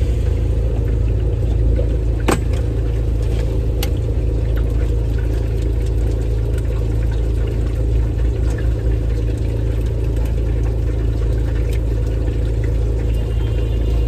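A motor running steadily with a low hum, with two sharp clicks about two and four seconds in.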